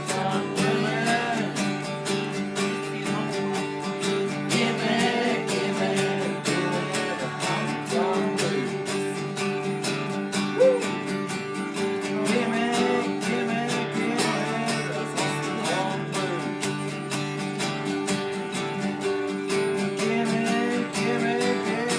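Acoustic guitar playing country music, strummed and picked in a steady rhythm.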